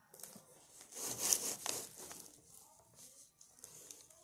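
Brief rubbing and rustling noises, as of bodies and clothing moving against something close to the microphone, loudest about a second and a half in and then fainter.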